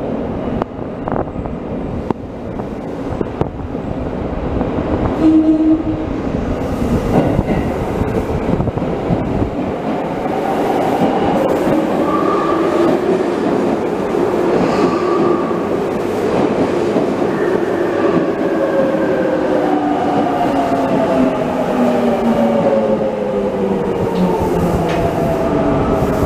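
Tokyo Metro subway train running through a tunnel: a rumble of wheels on rails, then an electric motor whine in several pitches that rises and then falls in pitch over the last several seconds.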